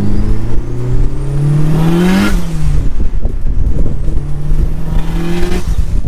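Turbocharged Honda B18C5 1.8-litre four-cylinder VTEC engine in an Acura Integra Type R accelerating hard, heard from inside the cabin. Its pitch climbs, then drops sharply with a brief rush of hiss a little over two seconds in. After a short gap it pulls and climbs again, and another rush of hiss comes near the end.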